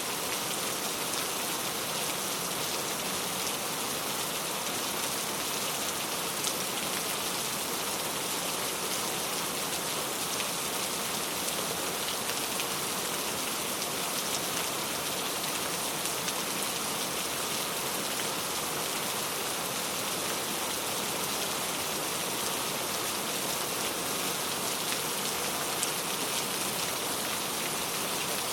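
Steady rain falling, a dense even hiss of drops with faint individual taps.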